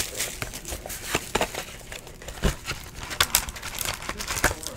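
Trading cards and a foil card-pack wrapper being handled: rustling and crinkling with irregular sharp clicks and taps, and a louder knock about halfway through.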